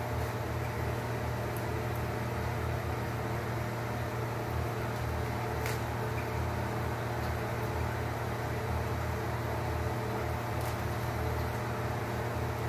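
Steady low machine hum with an even hiss over it, unchanging throughout, like a running fan; a faint click about six seconds in.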